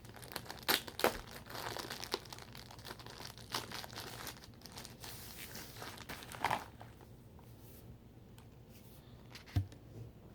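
Plastic packaging crinkling and tearing as a lightsaber blade is unwrapped, busy with sharp crackles for about the first six and a half seconds, then quieter handling with one soft knock near the end.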